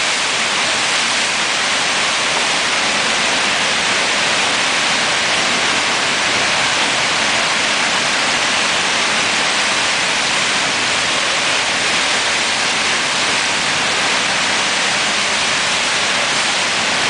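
Loud, steady rush of churning whitewater from the Eisbach's standing river wave.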